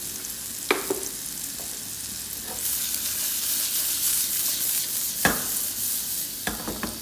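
Carrots frying in oil in a pan, a steady sizzle that grows louder about two and a half seconds in, with three short knocks of a utensil against the pan.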